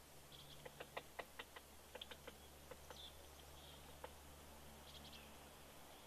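Woodpecker pecking at a tree branch while foraging for insects: faint, irregular taps, bunched in the first couple of seconds and thinning out after. A few short high-pitched notes come between them, over a faint steady low hum.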